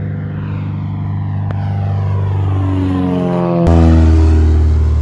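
Propeller float plane climbing out just after takeoff from the lake and passing low overhead. Its engine drone gets louder and drops in pitch as it goes over, then settles into a steady loud low drone near the end.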